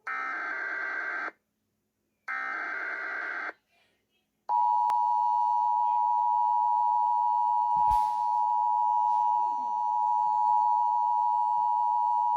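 Emergency Alert System tones: two buzzing bursts of SAME header data about a second long each, then the two-tone attention signal, a steady dual tone held for about eight seconds that cuts off abruptly. A brief low thump sounds under the tone about eight seconds in.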